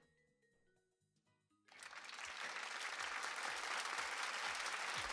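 Faint sparse music notes, then about two seconds in a burst of applause starts suddenly, swells and keeps going, with short falling low tones under it.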